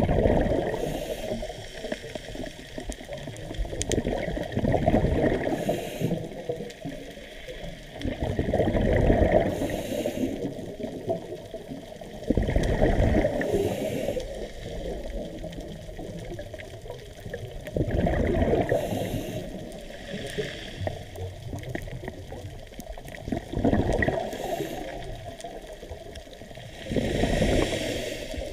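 A scuba diver's regulator breathing, heard underwater: a rush of exhaled bubbles about every four to five seconds, over a steady hiss of water.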